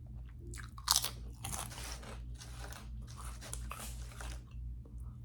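Close-miked eating: a loud crunching bite about a second in, then a run of crisp crunches as crunchy food is chewed.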